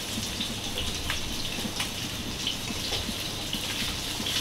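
Scad fish frying in hot oil in a nonstick pan: a steady sizzle with a few scattered pops and clicks, as the cooked fish are turned and lifted out.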